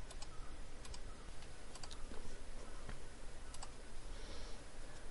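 Scattered light clicks from a computer keyboard and mouse, a few at a time, over a steady low hum.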